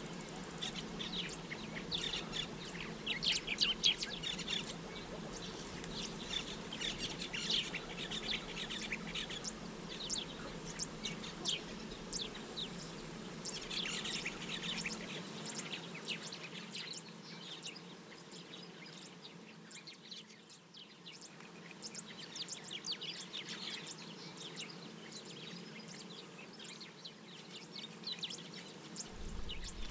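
Small birds chirping and twittering in quick, high runs of calls, with a lull about two-thirds of the way through, over a faint steady low hum.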